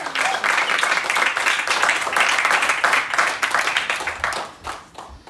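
Small audience applauding, dying away after about four and a half seconds.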